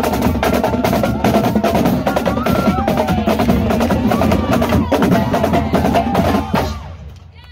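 Marching drumline of snare drums, tenor drums and bass drums playing a fast, loud cadence, which ends about six and a half seconds in and dies away.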